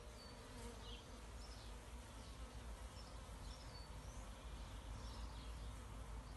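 Small swarms of honeybees massed at the entrances of nucleus boxes, buzzing faintly and steadily.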